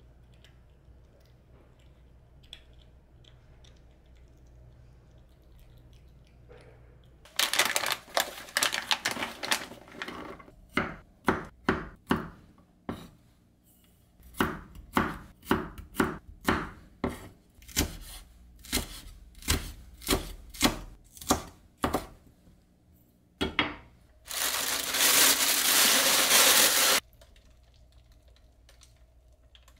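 Knife chopping food on a cutting board: after a quiet start, a quick run of chops, then slower single chops about one a second, followed by a few seconds of steady noise near the end.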